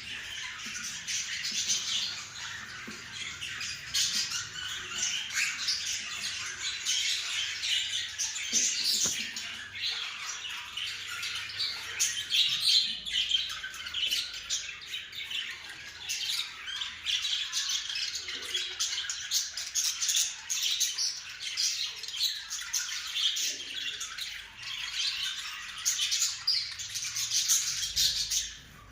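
A flock of caged budgerigars and cockatiels chirping and squawking together in a continuous dense chatter.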